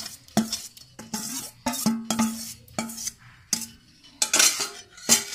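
Steel spoon knocking and scraping against a steel bowl and the rim of an aluminium pressure cooker as cooked dal is scraped in, each knock leaving a short metallic ring. Near the end, scraping as a ladle stirs the dal into the vegetables in the cooker.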